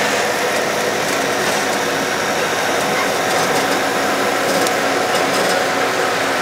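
Sightseeing flower train running steadily, heard from aboard: an even hum and rumble of its motor and wheels.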